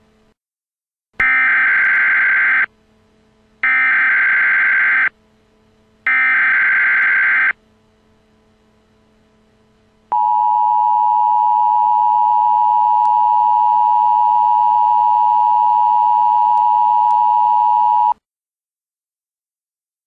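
Emergency Alert System SAME header: three short bursts of warbling digital data tones about a second apart. About ten seconds in comes the long, steady EAS two-tone attention signal, which runs about eight seconds and then cuts off. Together they mark the start of an alert, here a tornado watch.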